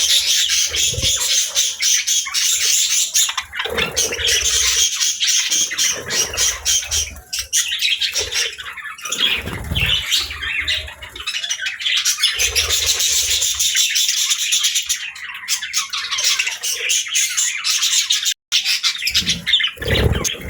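Budgerigars chattering and warbling continuously in a dense stream of fast chirps, with soft low thumps now and then.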